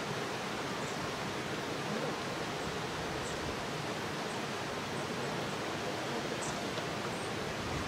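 Steady outdoor background noise, an even rushing hiss with no distinct events, with a few faint short high chirps.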